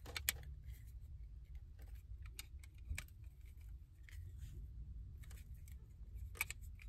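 Scattered small clicks and taps of a hard plastic trading-card case being handled as a card is fitted into it, over a steady low hum.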